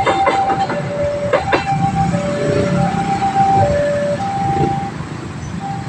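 Railway level-crossing alarm sounding a two-tone electronic siren, a higher and a lower note taking turns about every 0.7 s. Under it a train rumbles past, its wheels clacking over the rail joints for the first second and a half.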